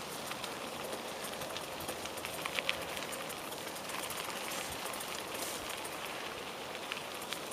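Bicycle tyres rolling over a loose gravel and stone track: a steady crunching hiss dotted with many small clicks and crackles from the stones.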